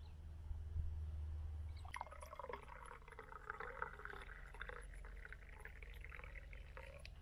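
Tea poured from a stainless-steel vacuum flask into a ceramic mug: a steady pouring stream that starts about two seconds in and stops just before the end. A low rumble comes before it.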